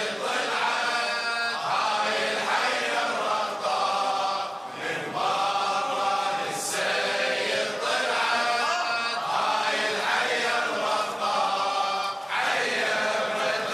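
A large group of men chanting a poem's refrain together in unison, in the style of an Iraqi Shia latmiya.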